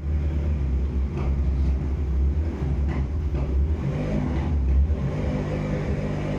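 A steady low rumble, with a few faint clicks or knocks over it.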